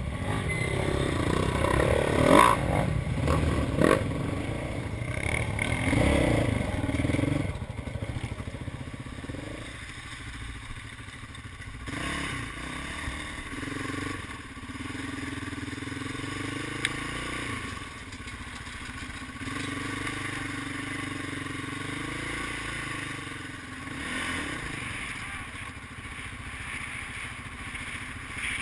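ATV engine running on a dirt trail, revving up and easing off repeatedly, with knocks and rattles over bumps. It is loudest and busiest in the first several seconds, then settles to a steadier, quieter run.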